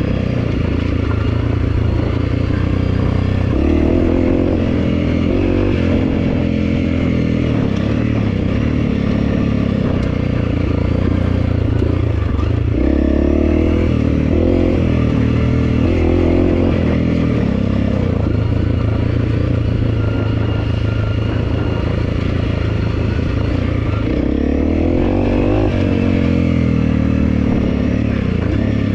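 Honda CRF300L's single-cylinder four-stroke engine running at low revs while the bike rides down a rutted dirt road. The revs rise and fall briefly a few times, with some clatter over the rough ground.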